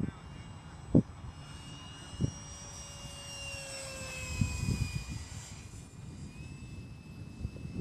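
Freewing 64mm electric ducted fan F-105 Thunderchief RC jet flying by low: the fan's high whine holds, then drops in pitch about midway as the jet passes. A sharp knock about a second in and a few more later stand out above it.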